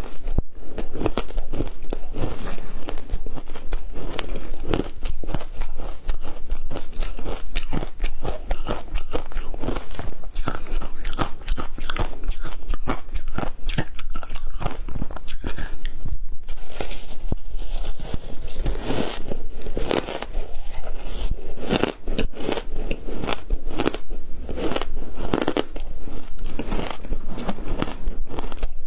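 Ice chunks dusted with matcha powder being bitten and chewed, a dense run of sharp crunches one after another.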